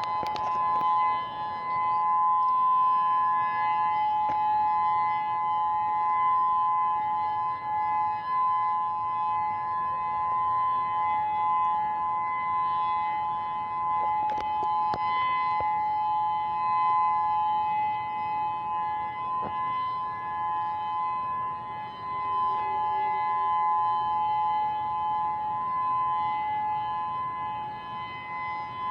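Outdoor civil-defense warning siren sounding a steady two-note tone for its test signal. The pitch holds without rising or falling, and the loudness wavers slightly.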